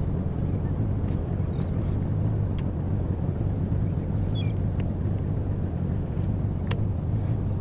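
Boat engine idling, a steady low hum, with a few faint high chirps and one sharp click near the end.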